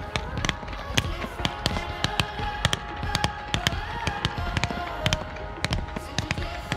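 Firework display: a fast, irregular run of bangs and crackles from bursting shells, with music playing underneath.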